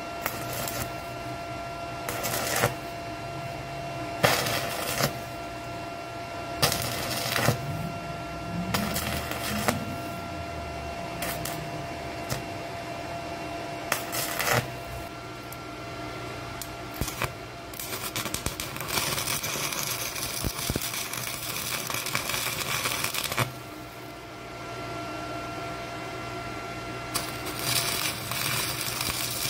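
Stick-welding arc from a Topshak ZX7-250 DC inverter welder, crackling as the electrode is struck several times in short bursts. It then burns steadily with a dense crackle for about five seconds, and again near the end. A steady hum runs underneath.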